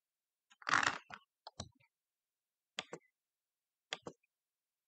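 A short rustle, then sharp clicks: a single one, followed by three quick pairs about a second apart.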